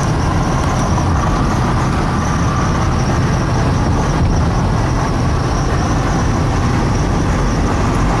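A car driving along a road: steady engine and road noise with a heavy low rumble.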